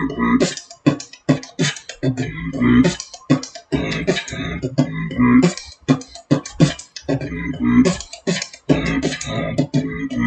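Human beatboxing: a fast, rhythmic run of mouth-made drum sounds, sharp clicks and hissing hits over low hummed notes.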